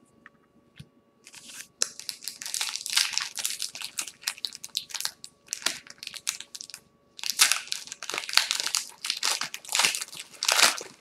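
Plastic wrapper of a baseball card pack being torn open and crinkled by hand, in two long stretches of dense crinkling that start about a second in.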